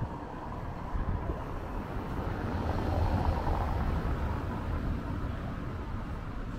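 Low rumbling outdoor background noise that swells around the middle and then eases off again.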